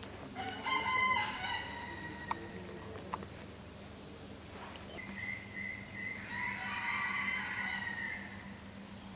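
A rooster crowing: a short call about half a second in, then one long crow of about three seconds starting about five seconds in. A steady high-pitched hum runs underneath.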